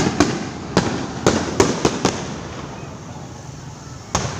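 Fireworks going off: a quick run of about seven sharp bangs in the first two seconds, a lull, then one more bang near the end.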